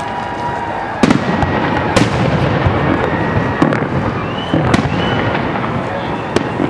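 Aerial fireworks display: shells bursting in sharp bangs roughly a second or so apart, over a continuous din from the show. A couple of brief high whistles come near the middle.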